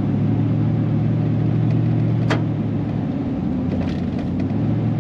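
2000 Chevrolet Silverado pickup driving on a paved road, heard inside the cab: a steady low drone of engine and tyre noise. A single sharp click comes about two seconds in, and a few faint ticks follow a little later.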